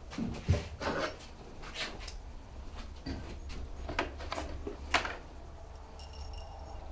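Metal motorcycle parts and tools being handled: a string of short knocks and clinks, loudest about four and five seconds in, over a low steady hum.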